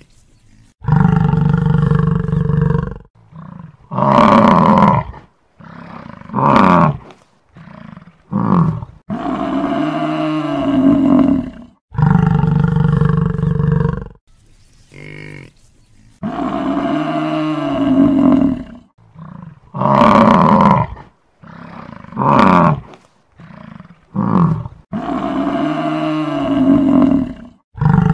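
Buffalo calling repeatedly: long drawn-out calls of two to three seconds alternate with short calls under a second. The same run of calls repeats after about sixteen seconds.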